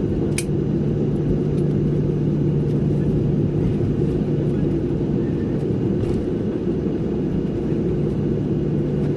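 Steady cabin rumble inside a Boeing 737-800 airliner: the noise of its CFM56 engines and airframe, with a steady low hum running through it. A brief click sounds about half a second in.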